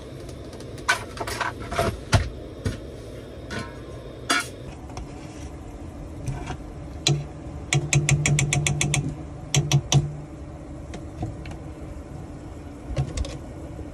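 Cookware being handled: scattered knocks and clinks of a pan, lid and utensils, with a quick run of about a dozen clicks about eight seconds in.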